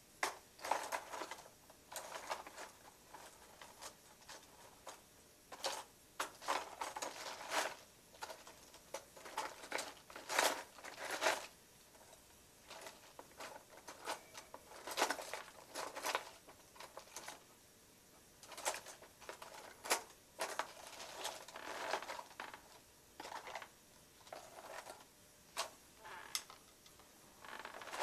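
Rummaging through spare iPhone logic boards and small parts at a workbench: irregular rustling, clicking and light clattering in short bursts with brief pauses.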